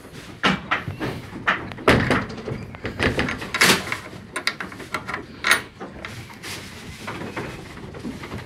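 Irregular knocks and thumps on wooden boards and pen rails, several a second, the loudest about two seconds in.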